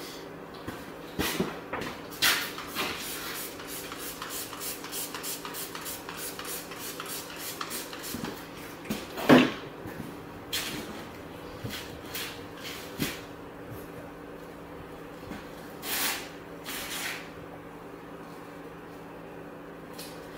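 Hand cleaning of a vehicle's painted door panel with a microfiber towel. A quick run of short hissing strokes gives way to a single thump about nine seconds in, then two short hissing bursts a few seconds later, over a faint steady hum.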